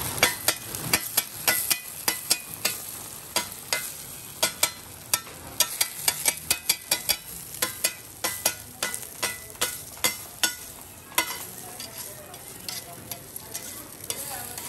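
Metal spatula scraping and tapping rapidly on a flat griddle, cutting apart a sheet of fried quail eggs, over a steady sizzle of frying. The clicks come thick and fast, thinning out over the last few seconds.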